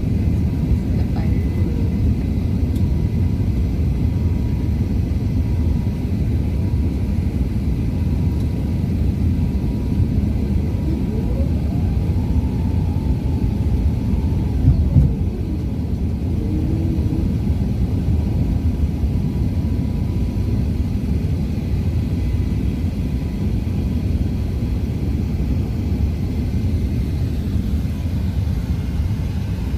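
Steady low rumble of an Airbus A380-800's cabin, with a brief thump about halfway through.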